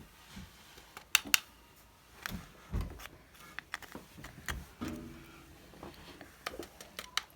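Scattered sharp clicks and a few soft knocks from small plastic items, such as containers and lids, being handled on a tabletop while slime is made.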